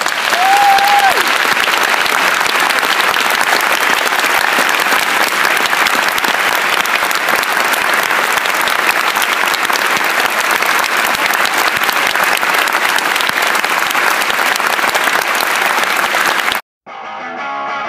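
Large audience applauding steadily and loudly for about sixteen seconds, with a short whistle from the crowd just after it begins. The applause cuts off abruptly and guitar music starts near the end.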